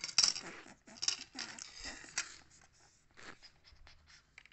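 Plastic Lego pieces and a baseplate being handled and slid on a table: a dense scraping rattle for about the first two seconds, then a few scattered small clicks.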